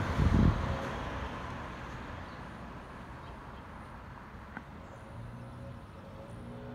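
Wind buffeting the microphone in low rumbling gusts that die away within the first second, leaving a quiet outdoor background. A steady low hum starts about five seconds in.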